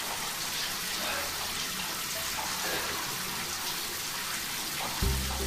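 Shower spray running steadily, water hissing down onto a person and the tiled floor. Music comes in near the end.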